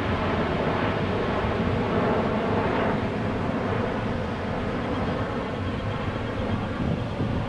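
Boeing 737 Next Generation's CFM56 jet engines running at taxi power as the airliner taxis onto the runway: a steady jet rumble.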